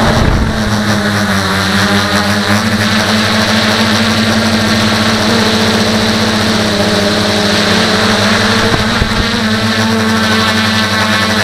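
Tricopter's three motors and propellers buzzing steadily and loudly, heard close up from the camera mounted on the craft, with small changes in pitch as the throttle varies.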